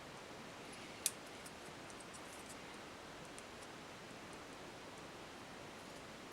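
Quiet, steady hiss of room tone. About a second in there is a single sharp click, then a few faint ticks, from a small circuit board and soldering tools being handled.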